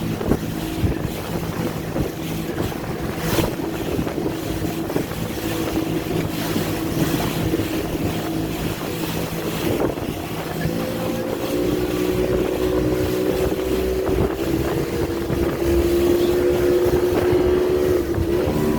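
Motorboat engine running under way, with wind buffeting the microphone. The engine note rises about halfway through and gets louder toward the end.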